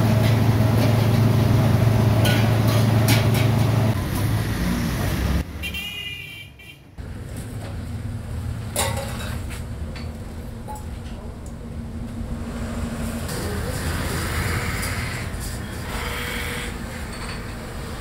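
A steady motor hum with a few sharp metallic clicks, which cuts off about five seconds in; after a brief dip, a quieter steady rumble with occasional clicks.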